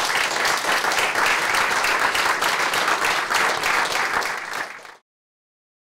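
Audience applauding: many hands clapping in a dense patter that cuts off abruptly about five seconds in.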